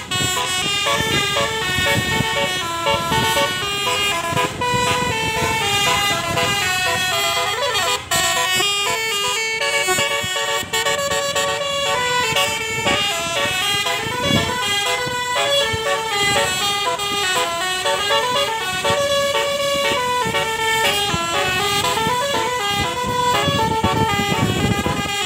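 Telolet basuri horn of a Tunggal Jaya bus playing one long unbroken melody, its tones stepping quickly up and down, with siren-like rising-and-falling sweeps near the start and about seven seconds in.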